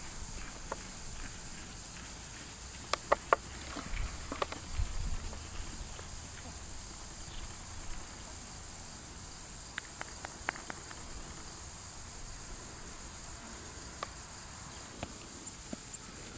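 Hooves of an American Quarter Horse gelding walking under saddle: scattered hoof steps and clicks, the loudest pair about three seconds in, over a steady high insect drone.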